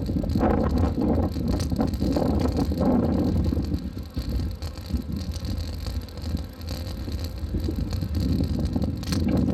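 Wind buffeting a phone's microphone while riding a bicycle: a steady low rumble, stronger in the first few seconds and again near the end.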